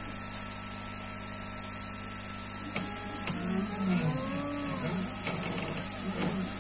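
Stepper motors of a CNC 3018 laser engraver whining in rising and falling glides as the laser head traces curves, starting about three seconds in after a couple of clicks. Under them runs the steady hum and hiss of the air-assist pump blowing through the laser nozzle.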